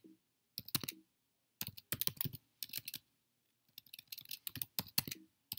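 Computer keyboard being typed on: short bursts of keystrokes with brief pauses between them, as a command is typed and partly deleted.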